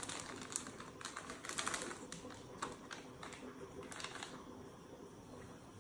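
Small paper baking-powder sachet being handled and torn open: crisp paper crinkling and crackling in irregular clusters, thickest in the first two seconds and again about four seconds in.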